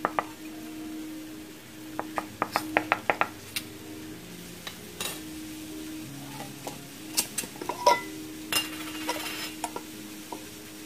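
Metal Ball canning lid on an empty, unsealed mason jar clicking in and out as a fingertip presses its centre: a quick run of about eight clicks about two seconds in, a few single clicks, and another cluster near eight seconds. This clicking is the sign of a lid with no vacuum seal. It is followed by a short scraping rasp of metal on glass as the lid is worked off.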